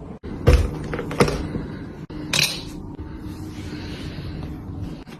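Household handling noises: a heavy thump about half a second in, a few sharp clicks and a short rustle, over a steady low hum.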